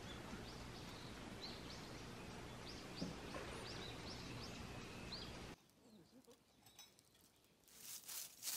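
Small birds chirping in short, high calls over a steady outdoor hiss. About halfway through the background drops away, and near the end a run of sharp rustling and clicking handling noises starts.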